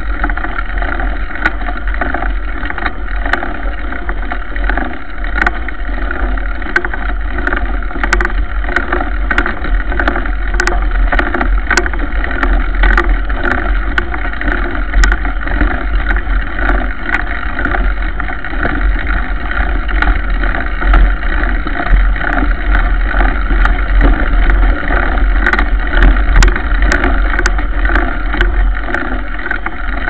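Mountain bike rolling along a dirt road, heard from a camera on the front fork: a steady rumble and hiss of the knobby tyre on the dirt and wind on the microphone, with frequent sharp clicks and rattles, thickest in the middle and near the end.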